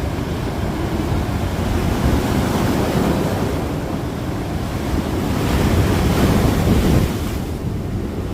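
Storm surf pounding and washing up the beach, with strong wind buffeting the microphone. The noise swells as waves break, about two seconds in and again more loudly near the end.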